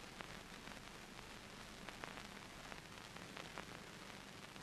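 Faint steady hiss with a low hum and a scattered few light clicks: the background noise of an old film soundtrack, with no other sound.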